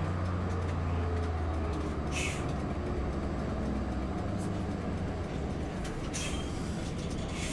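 Coach bus engine and road noise heard from inside the cabin as the bus slows down, the engine's low drone easing off about two seconds in. Short hisses of compressed air from the air brakes come three times: about two seconds in, about six seconds in, and at the end.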